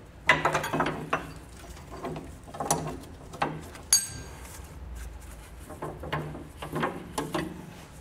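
Ratchet strap being released and taken down: the ratchet mechanism clicks and the metal hooks and buckle clink and rattle in short irregular spells, with a single metallic ping about four seconds in.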